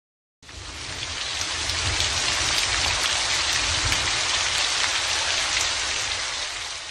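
Steady rain, an even hiss of falling drops that fades in about half a second in and fades out near the end.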